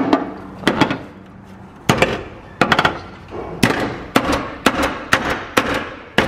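Hammer blows on the inside of a car's dented front fender, knocking the dent back out: about a dozen sharp strikes, spaced out at first and then coming about two a second from halfway on.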